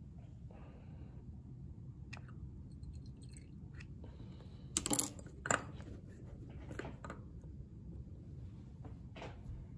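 Lab glassware being handled: a glass pipette, an Erlenmeyer flask and a rubber stopper knock and clink a few times as the catalyst goes in and the stopper is pushed home. The loudest knocks come in a quick pair about five seconds in, with fainter ones later, over a faint steady hum.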